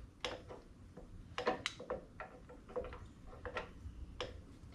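Scattered light clicks and knocks at irregular intervals, about seven in all, from the scooter's front wheel and its parts being handled and lined up in the fork.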